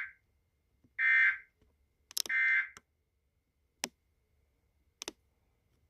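Emergency Alert System end-of-message signal: short bursts of buzzy data tone about a second apart, ending about three seconds in. A few sharp clicks follow.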